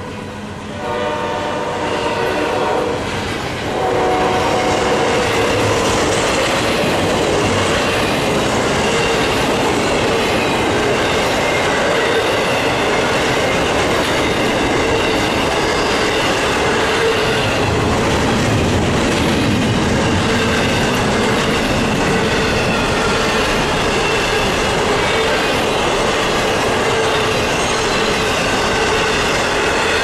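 Locomotive's five-chime K5LA air horn sounding, cutting off about three and a half seconds in. After that, double-stack container well cars roll by with a steady rumble and clatter of steel wheels on rail.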